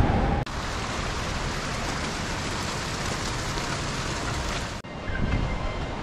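Steady rush of river water. The sound changes abruptly about half a second in and again near five seconds in, and faint thin high tones come through in the last second.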